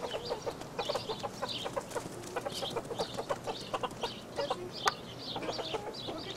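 Chickens clucking steadily in quick, overlapping clucks, with high chirps over them. A single sharp click comes a little before five seconds in.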